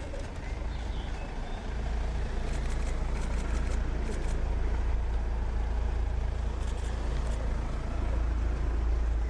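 White Mercedes hearses passing slowly at close range, their engines and tyres making a steady low rumble. Two short runs of sharp clicks come a few seconds in and again near the end.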